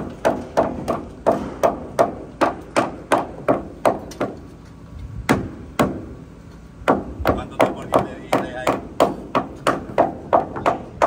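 A hammer driving nails into the wooden deck framing, struck over and over at about three blows a second. The blows pause briefly around the middle, with two single heavier blows, then resume at the same pace.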